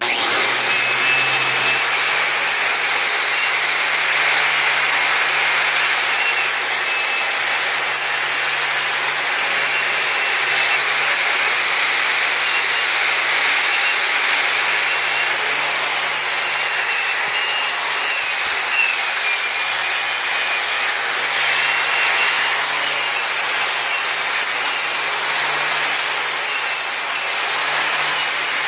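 Electric grinder running continuously while grinding. Its high motor whine holds steady and wavers a little in pitch as it is worked.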